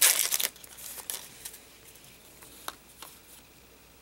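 Foil booster-pack wrapper crinkling in a short burst at the start, then a few soft clicks and rustles of trading cards being handled.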